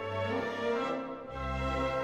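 Background music: orchestral strings and brass playing sustained chords over a steady bass line.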